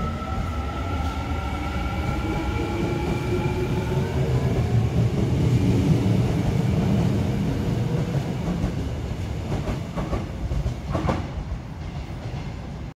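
A Suin–Bundang line electric train pulling out of the station. Its VVVF traction inverter and motors whine in several rising tones as it accelerates, over a rumble that builds to its loudest about halfway through and then fades, with a few knocks from the wheels over rail joints near the end.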